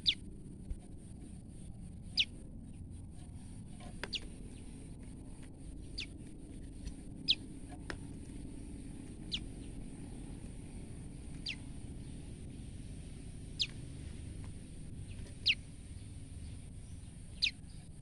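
Female common tailorbird giving short, sharp calls that slide downward in pitch, about ten of them at roughly two-second intervals. These are the calls the female gives when frightened.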